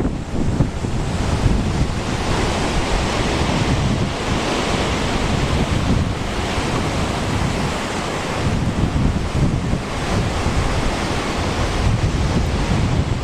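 Typhoon-driven surf breaking and washing in, swelling in surges every few seconds, with strong wind buffeting the microphone.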